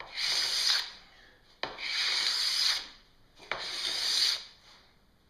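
Metal scraper drawn across a snowboard's plastic base, three scraping strokes about a second and a half apart, the second and third starting with a sharp tick as the edge catches. The scraper is taking off old wax and any base material pushed up around gouges.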